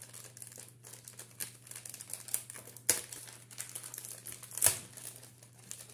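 A small gift bag crinkling and crackling as it is handled and opened, with a sharper crackle about three seconds in and a louder one shortly before five seconds.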